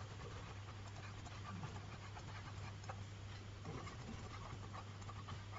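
Faint room noise with a steady low hum and a few soft, faint ticks.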